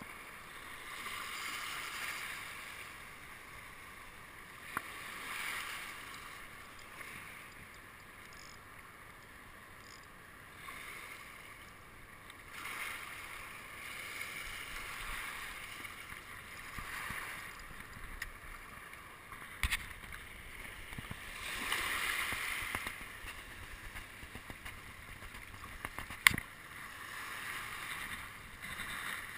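Small waves washing over a shallow reef edge, swelling and fading every few seconds, with a few sharp clicks, the loudest near the end.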